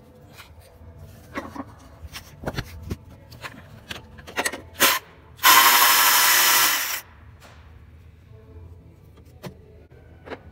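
A power tool runs in one steady burst of about a second and a half, spinning out a bolt of the engine's timing-belt cover. Scattered clicks and knocks of tools on metal come before it.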